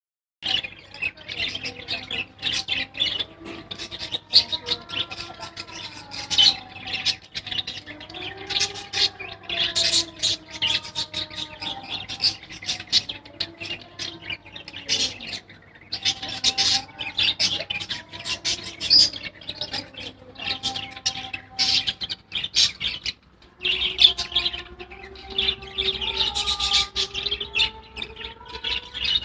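A flock of Hagoromo budgerigars chattering continuously, with a dense mix of chirps, squawks and warbling.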